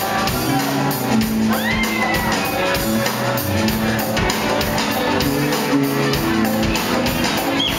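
A live band playing, with drums keeping a steady beat under acoustic and electric guitars and a fiddle, and shouts and whoops from the crowd.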